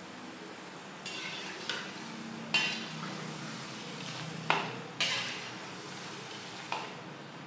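Pakoda fritters sizzling in deep-frying oil, with a perforated steel skimmer scraping and clinking against the kadai as it scoops them out. About six sharp metal knocks; the loudest come about two and a half and four and a half seconds in.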